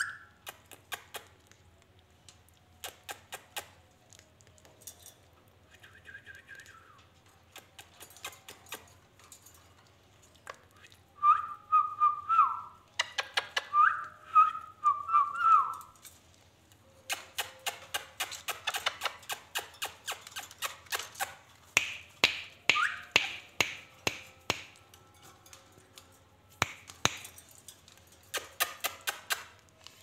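Whistling in short phrases of a few notes, among many sharp clicks. The clicks come thick and fast in the second half.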